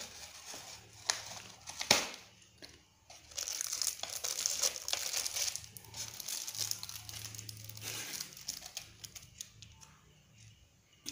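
Foil and plastic packaging of an instant noodle cup crinkling and rustling as the foil lid is peeled off and the foil seasoning sachets are handled, with two sharp crackles in the first two seconds and the crinkling thinning out near the end.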